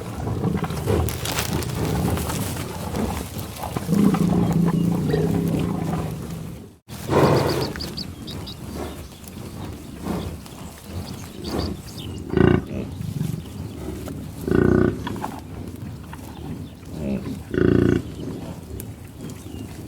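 Cattle mooing: a held low moo about four seconds in, then, after an abrupt cut, several short moos a few seconds apart.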